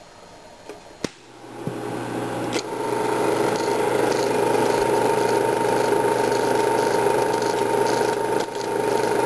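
Eumig S 932 Super 8 sound projector switched on with a click about a second in, its motor and mechanism then starting up and running with a steady mechanical hum and a fast, even flutter. There is a brief dip in level near the end.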